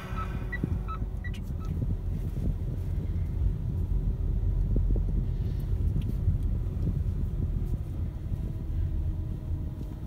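Steady low rumble of a car's engine and tyres, heard from inside the moving car. A string of short electronic beeps, about three a second, stops about a second and a half in.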